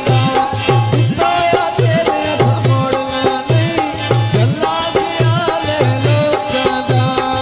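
Punjabi folk music: a dhol beating a steady rhythm, with a fast, even rattling percussion and held melody notes stepping between pitches over it.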